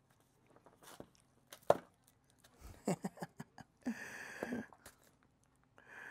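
Handling noise on a wooden workbench: scattered knocks and clicks as a cylindrical canister is picked up, turned and set down, with one sharp knock just under two seconds in. Two short scraping, rasping sounds follow, about four and six seconds in.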